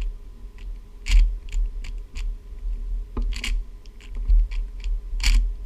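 Plastic layers of a YJ Guanlong 3x3 speed cube clicking as they are turned in quick runs, with a few louder clacks about a second in, past three seconds and near the end.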